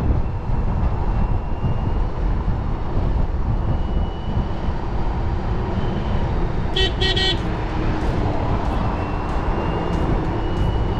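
Steady wind and road rumble of a motorcycle riding at highway speed, heard on a helmet-mounted camera. About seven seconds in, the motorcycle's horn honks in a short burst of beeps.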